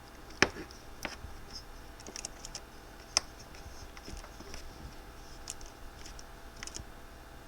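Scattered small metallic clicks and ticks of two T8 Torx drivers working a bolt and barrel nut on a titanium-handled folding knife. A sharper click comes about half a second in, and another about three seconds in.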